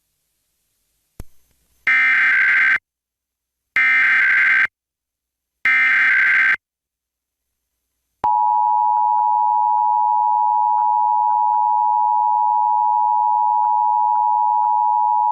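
Emergency Alert System header: a click, then three short bursts of the warbling digital SAME data tones, a pause, and then the steady EAS attention signal tone starting about eight seconds in and continuing past the end.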